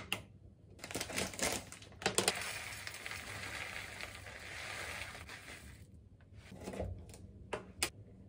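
Dry rolled oats poured from a plastic bag into a glass container, a steady rattling hiss lasting about three and a half seconds. Before it come clicks and plastic crinkling as the container's lid comes off and the bag is opened; near the end, a few sharp clicks.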